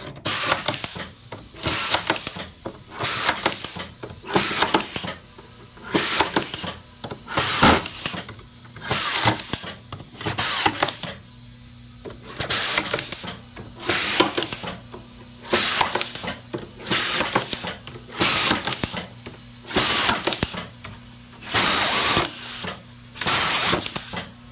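Automatic hinge screwdriving machine cycling repeatedly, driving screws: a short burst of machine noise a little over a second apart, over a low steady hum.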